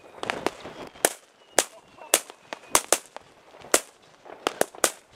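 New Year's Eve firecrackers banging in an irregular string, about a dozen sharp bangs in a few seconds, some much louder than others.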